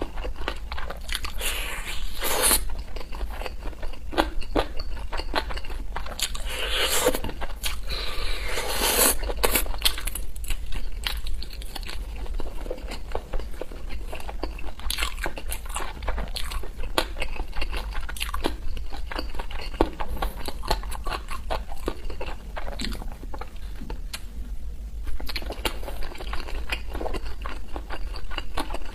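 Close-up biting and chewing of sauce-glazed fried meat skewers: wet mouth sounds and short clicks, with louder bites every few seconds.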